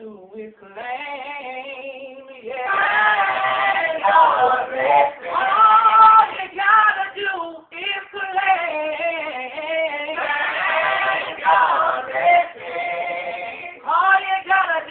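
Gospel vocal group singing, several voices holding long sustained notes with brief breaks between phrases.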